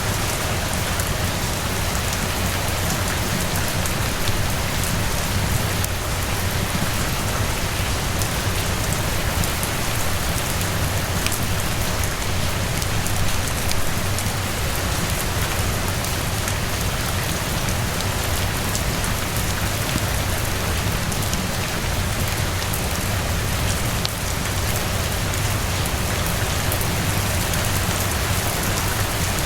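Steady rain falling, an even hiss with scattered light ticks of drops.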